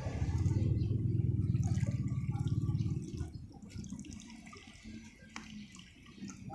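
Shallow river water sloshing and splashing as a mesh keep net is dipped and moved in it at the bank. The sound is loudest for the first three seconds, then fades to a few faint splashes and drips.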